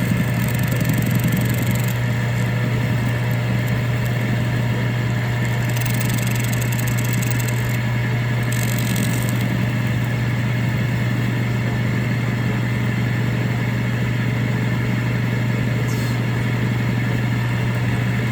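Drill press running steadily with a 5/16-inch end mill, taking a milling pass across an airgun magazine lid: a constant motor hum, with a few short stretches of higher cutting hiss.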